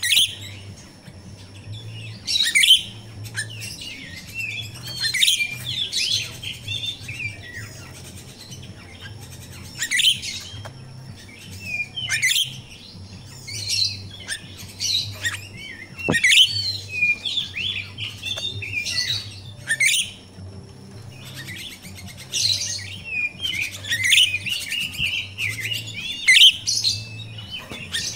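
Grosbeak starling (jalak Rio-Rio) giving shrill chirps and chattering calls in short bursts every second or two, with longer runs of chatter about midway and near the end.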